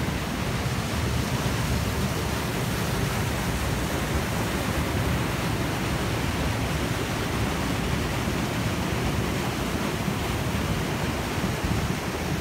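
Steady rushing noise with a strong, unsteady low rumble.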